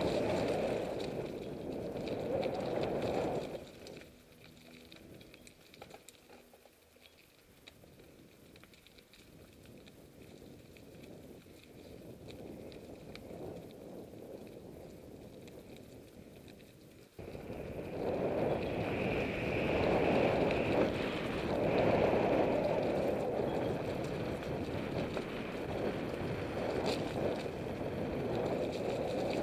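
Mountain bike riding on a forest track, with wind rushing over the camera microphone and tyres rolling on gravel. The noise drops much quieter a few seconds in, then comes back abruptly about two-thirds of the way through.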